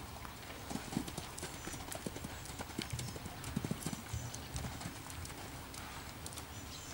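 Hoofbeats of a cantering horse on sand arena footing, an irregular run of dull thuds, with heavier thumps as it takes off and lands over showjumping fences.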